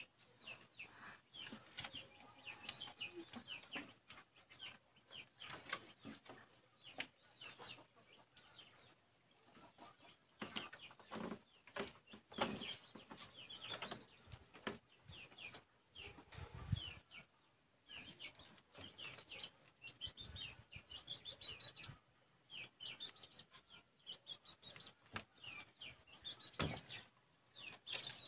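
Small birds chirping over and over, many short high chirps that fall in pitch, with a few dull thumps.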